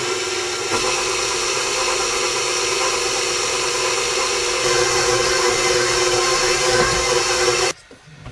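Electric stand mixer running steadily with its dough hook kneading flour and liquid into pizza dough, a steady motor whine with gear hum. It gets slightly louder about halfway through and cuts off suddenly near the end.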